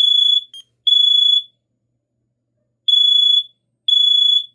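Kidde KN-COSM-IBA combination smoke and carbon monoxide alarm sounding under test. Its shrill, loud beeps of about half a second come in groups of three with a pause of about a second and a half between groups, the three-beep pattern that signals fire.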